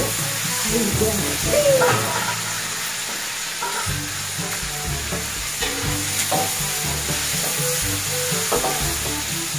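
Red chilies frying in hot oil in a wok, sizzling steadily while a spatula stirs them, with a few sharp clicks of the spatula against the pan. The chilies are being fried before being blended into spice paste.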